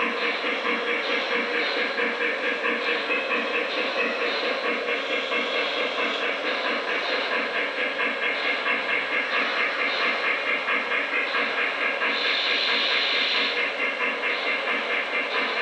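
O gauge model train running on the layout, a steady sound with a rapid, even pulsing, much like the electronic sound system of a model locomotive.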